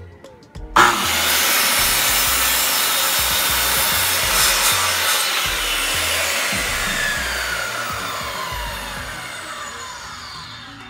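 Circular saw with a freshly sharpened blade switched on about a second in and cutting through wood, then released, its whine falling in pitch as the blade spins down over the last few seconds.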